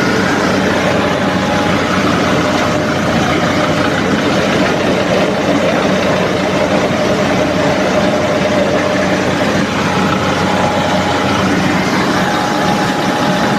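NG 25D combined rice milling machine running steadily at full speed: a loud, even machine noise with a constant hum, unchanged throughout.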